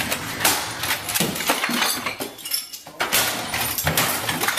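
Rapid banging and clattering as a man smashes a computer monitor, keyboard and desk items in a rage, with glass clinking and breaking among the blows. The racket pauses briefly just before three seconds in, then starts again.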